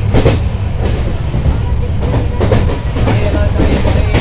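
LHB passenger coach running at speed: a steady low rumble of wheels on rail, with sharp clicks at irregular spacing as the wheels pass over rail joints. Heard from an open coach window.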